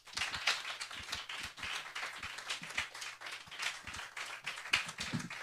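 A small audience clapping: many overlapping hand claps of applause welcoming a speaker.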